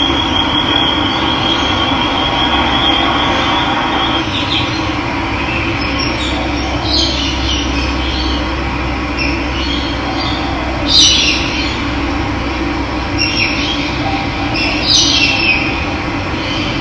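Steady rush of running water, with birds chirping over it in short scattered calls, the loudest about eleven seconds in. A thin high steady tone sounds over the water for the first few seconds.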